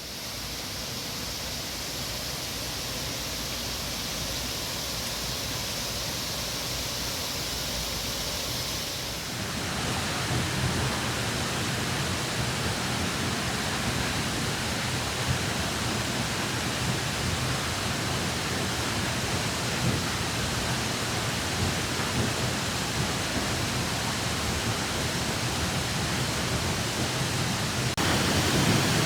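Waterfall rushing: a steady, even noise of falling water that grows louder and fuller about nine seconds in and again near the end.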